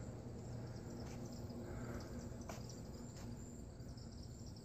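Faint crickets chirping in a quiet outdoor background, over a steady low hum, with a few light clicks.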